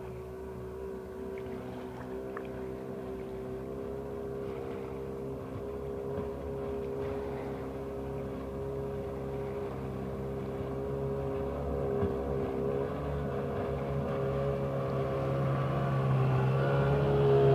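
Engine of a 1200cc jet boat running at a steady speed across the water, its even drone growing louder as the boat comes nearer.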